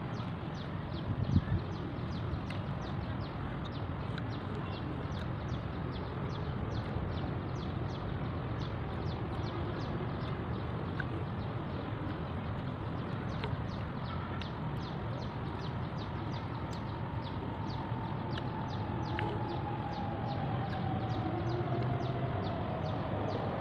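Outdoor background noise: a steady rumble with a fast, faint high ticking throughout. Cutlery clinks about a second in, and near the end a faint drone slowly falls in pitch.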